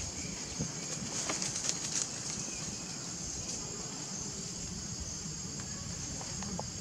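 Outdoor ambience: a steady, high insect drone, with a few soft clicks and rustles in the first two seconds over a low rumble.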